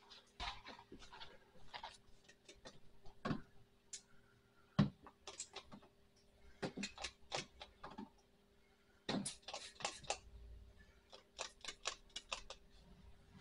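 Hand trigger spray bottle squirting soapy water around the cooling-system hose connections in short repeated spritzes, some in quick runs, with a couple of dull knocks. This is a leak check on the cooling system under 10 PSI from a pressure tester.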